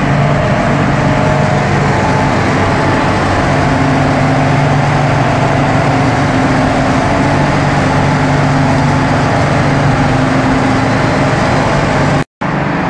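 Refrigeration plant of a flake ice machine running: semi-hermetic compressors and condenser fans making a loud, steady mechanical hum with several held tones. The sound cuts out for an instant near the end.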